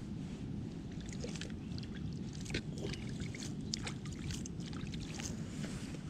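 Hand scooping river water at the bank's edge and splashing it into a bowl of dry oat-and-corn carp bait mix: many small, scattered splashes and drips over a steady low rumble.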